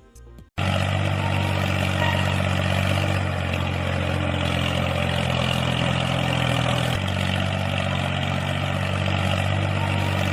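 Engine-like running sound at a steady idle, a low even hum with a rough noisy layer over it. It starts suddenly just under a second in, and its pitch shifts slightly about seven seconds in.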